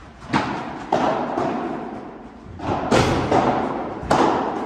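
A padel rally: the ball is struck with solid padel rackets and bounces off the court and the glass walls. About six sharp pops come in quick, irregular succession, each echoing through the large indoor hall.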